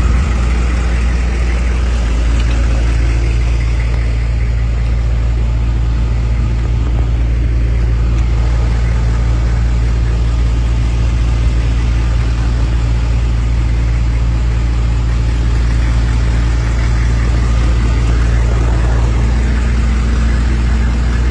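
Mister Softee ice cream truck's engine idling with a steady low hum, heard up close beside the truck.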